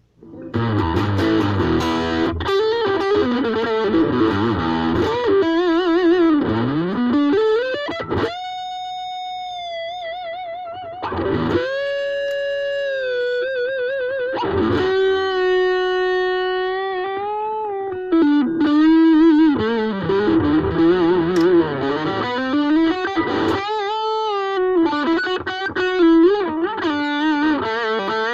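Ibanez AXS42 electric guitar, rewired with solid-core vintage wire, playing a lead line through distortion: string bends, fast runs, and held notes shaken with wide vibrato, the longest around the middle.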